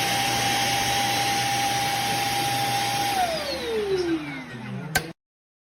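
Shark Clean & Empty cordless stick vacuum running with a steady high whine and airflow hiss. About three seconds in it is switched off, and the whine falls steadily as the motor spins down. A click near the end comes just before the sound cuts out.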